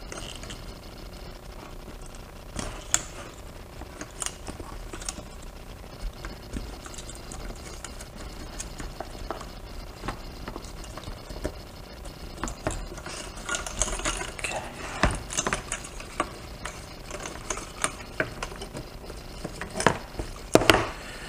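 Scattered small plastic clicks and rattles as the fuel-injector harness connectors are squeezed and popped off a motorcycle throttle body, with the parts knocking against a plastic tub. The clicks are sparse at first and come more often in the second half.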